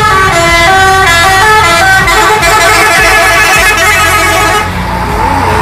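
Musical vehicle horn playing a quick tune of stepped notes, several pitches sounding together, stopping about four and a half seconds in. A short wavering tone follows near the end.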